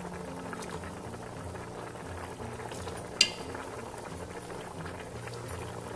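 Chicken corn soup bubbling steadily at a boil in a pot, with a single sharp click about three seconds in.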